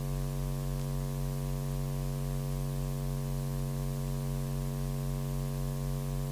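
Steady electrical mains hum: one unchanging low buzz with a ladder of even overtones, picked up on the commentary microphone's line.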